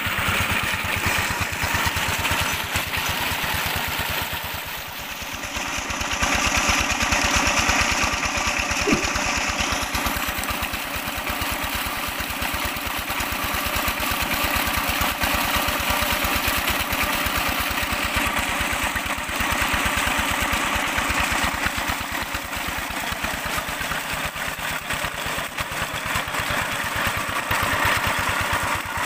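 A Peter-type single-cylinder diesel engine running steadily, driving a belt-driven tube well pump, with the rush of a heavy stream of water pouring from the pump's outlet pipe. The water is louder for a few seconds from about six seconds in.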